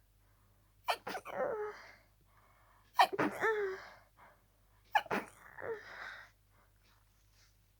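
A person sneezing harshly three times in quick succession, about two seconds apart, each a sharp burst trailing off into a falling voiced tail. It is part of a rapid sneezing fit brought on by a cold.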